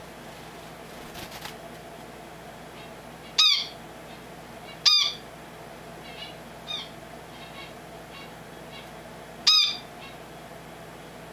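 Finch calling: short, pitched calls, three of them loud (about 3.5, 5 and 9.5 seconds in), with several fainter calls between them, over a steady faint hum.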